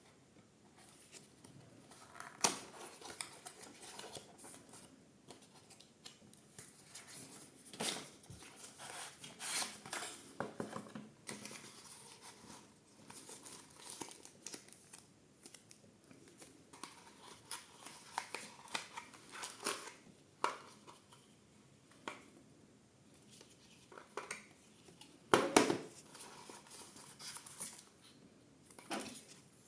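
Hands unpacking a small electronics box: scattered rustling and crinkling of packaging with light clicks and knocks. The loudest is a short clatter about 25 seconds in.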